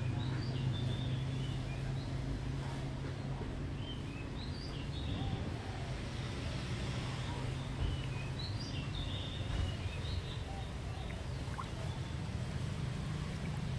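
Water swishing in a plastic tub of paper pulp as hands stir it and work a wooden mould and deckle through it. Short bird chirps come several times over a steady low hum.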